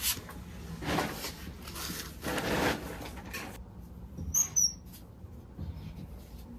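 Porcelain toilet tank lid scraping and rubbing as it is lifted off, then about four seconds in two short, high squeaks as the water shutoff valve behind the toilet is turned.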